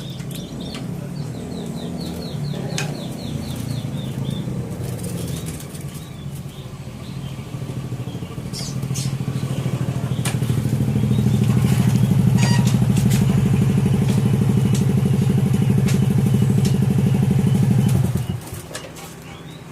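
A motorcycle engine running steadily close by. It grows louder from about halfway and cuts off abruptly near the end. A bird chirps in a short quick run a couple of seconds in.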